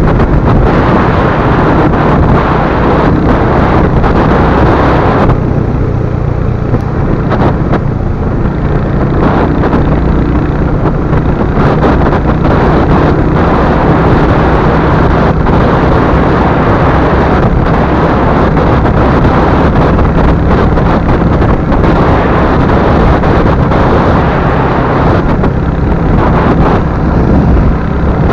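Wind rushing over the microphone from a moving Royal Enfield Hunter 350. Its single-cylinder engine runs steadily underneath. The wind rush eases slightly about five seconds in.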